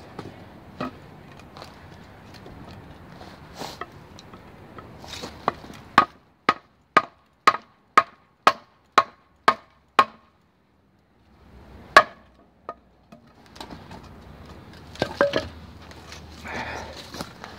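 Wooden baton striking the spine of an S30V steel fixed-blade knife (Benchmade Bushcrafter) set into a log, batoning through frozen wood. It starts with a few light knocks, then a run of nine sharp knocks about two a second, each with a short ring. A single hard knock comes about two seconds later, followed by lighter knocks and scuffing of wood.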